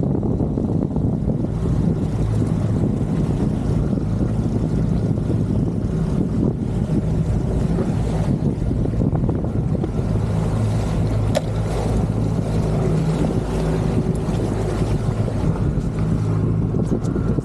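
Boat engine running steadily under way, a low hum with wind and water rushing past.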